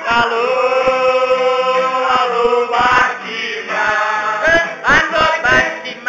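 A group of people chanting loudly together, with long held notes, and a few sharp knocks mixed in.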